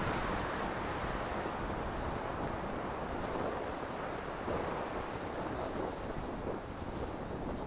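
Wind blowing on the camera's microphone: a steady rushing noise with no distinct events.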